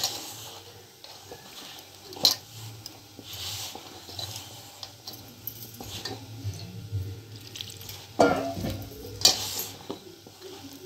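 Hand mixing flour and water into dough in a stainless steel bowl: a rough rubbing and scraping of the flour against the steel, with a few sharp clinks against the bowl, one about two seconds in and two near the end.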